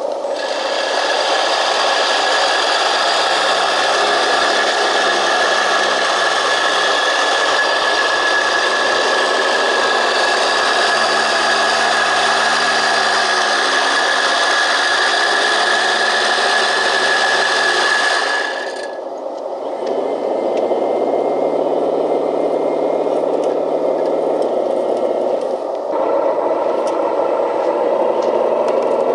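Scale RC vibrating road roller packing down cold-patch asphalt: a steady buzzing rattle of the vibrating steel drum with a high whine over it. The whine cuts off suddenly about two-thirds of the way through, and a lower rattling run carries on.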